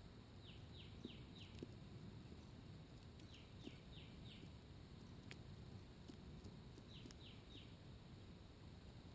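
A songbird faintly repeating a short phrase of four quick descending notes, about every three seconds. Under it there are a few soft ticks and steady low outdoor background noise.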